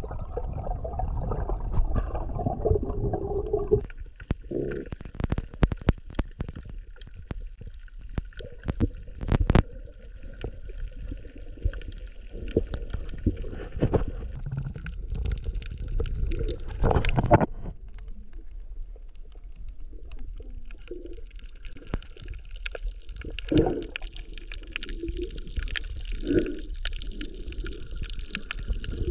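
Underwater sound picked up by an action camera's microphone while submerged: a steady, muffled low rumble of water with many scattered sharp clicks and knocks through the middle, and faint gurgling later on.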